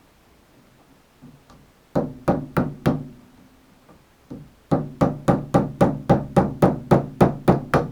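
Hammer tapping a very small screwdriver against a rusted spring strip stuck in a window screen frame's groove, to knock it loose. Four quick taps about two seconds in, one more, then a steady run of about a dozen at roughly four a second, each with a brief metallic ring.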